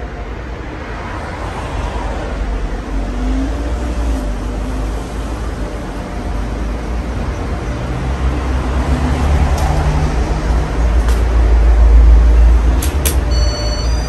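Casablanca California Zephyr ceiling fan running, with a heavy low rumble that grows louder toward the end and a couple of sharp clicks near the end.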